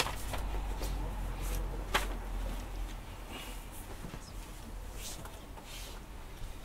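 Paper rustling and a few scattered small clicks, pages of a book being leafed through to find the next passage to read, over a low steady hum of the room's sound system.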